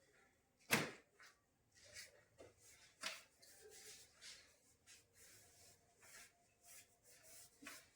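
A single sharp crack about a second in, typical of a neck joint releasing under a chiropractic adjustment. A fainter click follows about three seconds in, with faint rustling in between.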